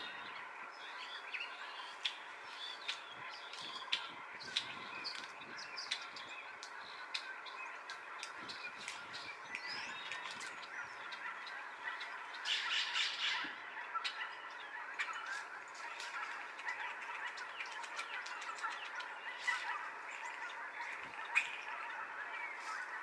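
Farmyard fowl calling, with one louder harsh squawk about twelve seconds in, over a steady background of small birds chirping.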